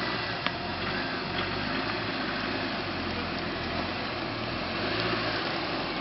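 Chevrolet Niva's engine running steadily, with a couple of faint clicks.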